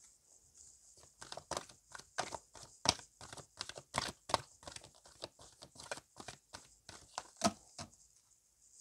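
An oracle card deck being shuffled by hand: a quick, irregular run of soft card slaps and flicks, a few a second, starting about a second in and stopping near the end.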